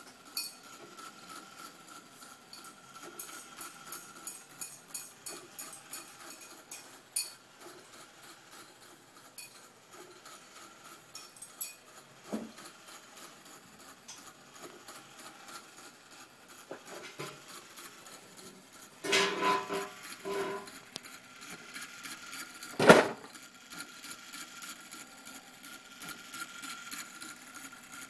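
Light metallic clicks and ticks from the brass movement and parts of an antique English chiming clock being handled. About two-thirds through there is a short, louder clatter with some ringing, and soon after it a single sharp knock.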